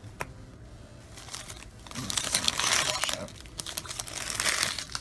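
Foil Pokémon booster pack wrappers crinkling as they are handled, in two spells of about a second each starting about two seconds in.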